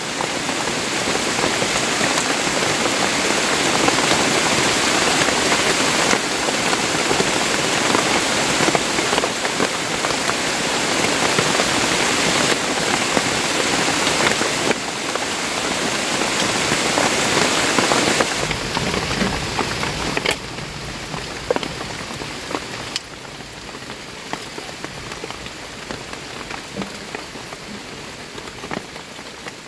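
Heavy rain falling, a dense steady hiss with scattered drop ticks, growing quieter in steps over the last ten seconds.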